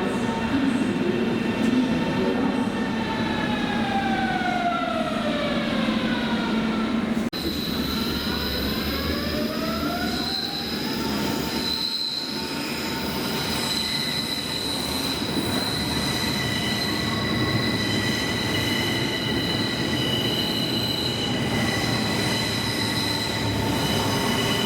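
Electric train's traction motors whining, the stacked tones falling in pitch as it slows. Then, after a cut, they rise in pitch as a train pulls away, over the rumble of the train, and settle into steady high-pitched squealing tones.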